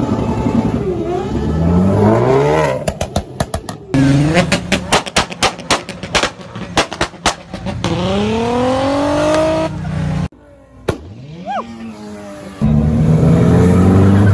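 Car engines revved hard while cars do burnouts and drifts. Midway one engine stutters at about five pulses a second. Then a car accelerates with its pitch climbing steadily until the sound cuts off suddenly, and near the end another engine revs as a car drifts past.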